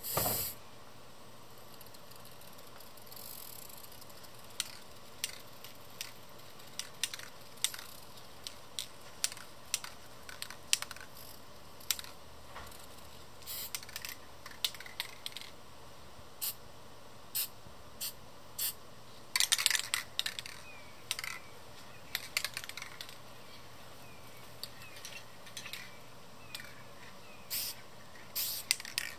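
Rust-Oleum American Accents aerosol spray paint can giving many short, separate spurts, spattering star specks onto the canvas. There is a slightly longer spray right at the start and a denser run of spurts about two-thirds through.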